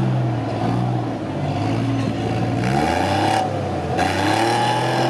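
Suzuki Vitara SUV's engine working under load as it climbs a rutted off-road track: a steady note for the first couple of seconds, then the revs rise and fall repeatedly as the driver blips the throttle.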